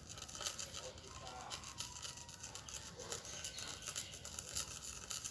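A pen stirring and scraping through sticky glue slime mixture, a steady run of quick, soft scraping strokes.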